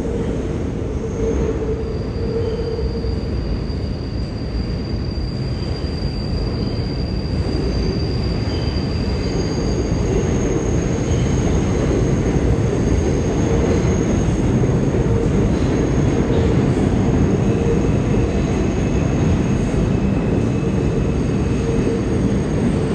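New York City subway train rumbling on the rails through the tunnel, with thin, steady high-pitched wheel squeals over it. It grows a little louder as a train approaches the platform.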